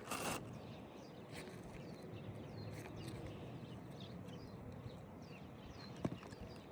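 Faint handling sounds of a new asphalt roof shingle being fitted into place: a brief rustle at the start and a sharp tap about six seconds in.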